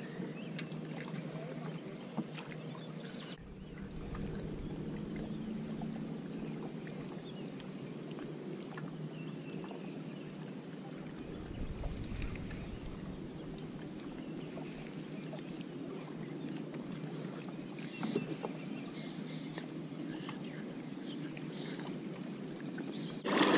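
Water lapping against a plastic fishing kayak's hull, with a low rumble in the first half. Near the end a bird calls a quick series of about nine high, falling notes.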